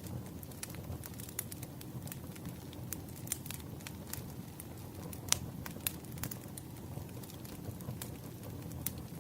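Campfire burning, crackling with scattered sharp pops over a steady low rumble of flames; one pop stands out louder a little past the middle.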